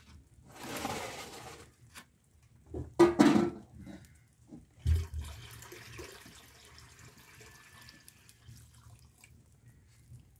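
Water being poured into an aluminium cooking pot, a steady splashing hiss that fades out. Before it, the metal pot clatters loudly a couple of times as it is handled.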